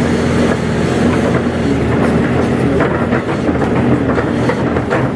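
Crawler excavator's diesel engine running steadily under working load, heard from inside the cab, with knocking and clatter as the bucket digs and moves wet mud.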